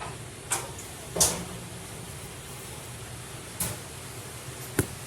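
Four short, sharp knocks or clacks, the loudest about a second in, over a steady low hum.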